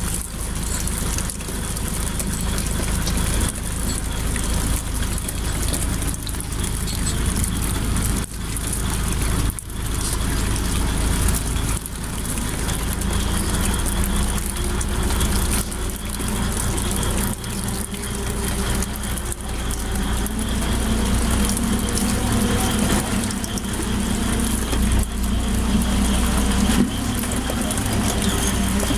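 Fishing boat's engine running steadily, a low, even drone with a hiss above it.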